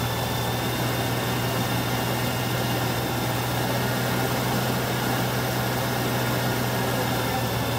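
Newly installed 327 Chevy small-block V8 idling steadily during its break-in run, a constant low hum with no change in speed.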